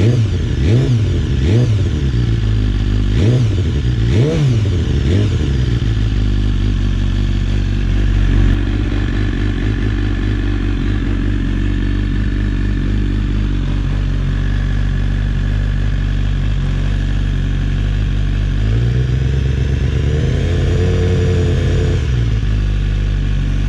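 BMW S 1000-series motorcycle inline-four engine blipped several times in quick succession, then settling to a steady idle. Near the end it is revved once more, for a couple of seconds, and drops back to idle.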